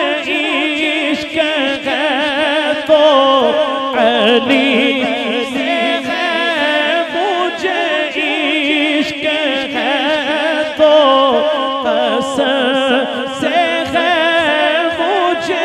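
A man singing a naat, an Urdu devotional poem, into a microphone in long ornamented phrases with a wavering, sliding pitch.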